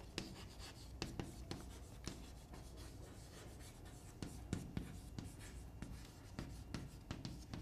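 Chalk writing on a chalkboard: a faint run of irregular taps and scratches as the letters are written.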